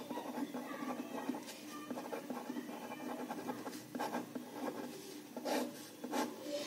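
A pen writing on a sheet of paper: short, irregular scratching strokes of handwritten letters, with a longer underlining stroke toward the end.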